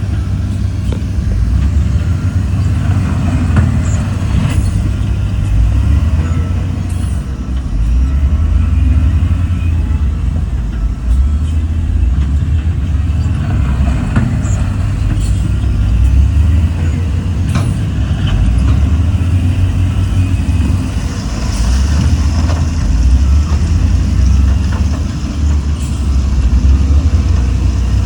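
Heavy diesel earthmoving machinery running with a steady deep engine drone, with scattered knocks and clanks.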